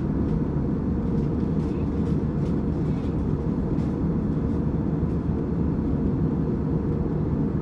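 Steady low cabin noise of an Airbus A320 airliner, an even rumble with no change in level.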